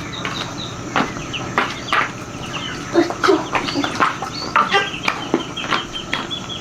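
Chickens clucking while feeding, with many short high chirps mixed in.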